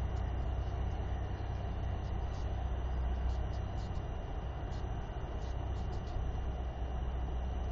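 Steady low rumble of wind on an outdoor camera microphone, with a faint high steady tone above it.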